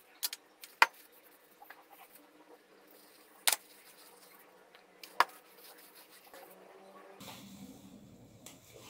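A few sharp clicks and taps, about four spread over several seconds, from objects handled on a table, over quiet room tone.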